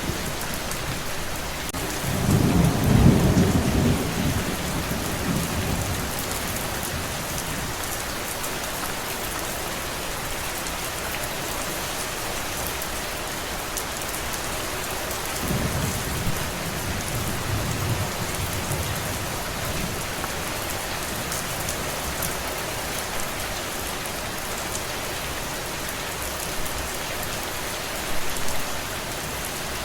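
Steady rain falling, with rolling thunder: a loud low rumble about two seconds in, a softer, longer one in the middle, and a short one near the end.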